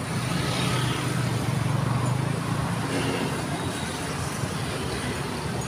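Road traffic passing close by: motorcycle and car engines with a steady low hum, a little louder in the first couple of seconds.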